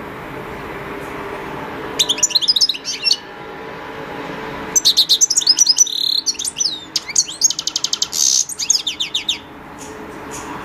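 European goldfinch singing: a short burst of rapid, high twittering about two seconds in, then a longer run of tinkling, warbling song over about four and a half seconds, over a steady low hum.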